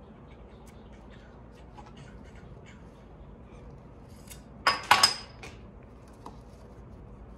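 A metal straightedge clanking against a steel welding table as it is picked up: a quick cluster of sharp metallic clanks with a brief ring, about five seconds in. Faint scattered ticks before it.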